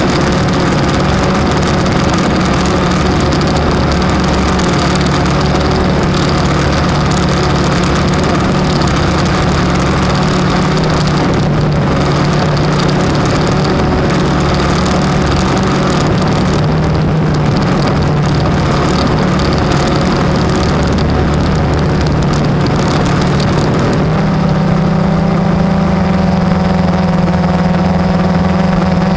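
Blade 350 quadcopter's electric motors and propellers whirring steadily in flight, with several steady tones. About three quarters of the way through, the pitch steps up as the motors speed up.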